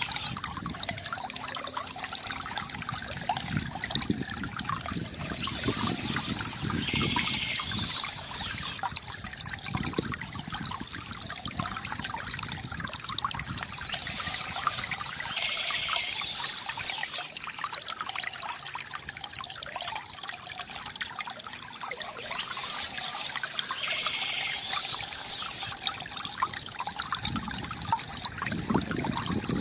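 Small stream trickling and babbling steadily over stones. A short high bird phrase recurs about every eight seconds above the water.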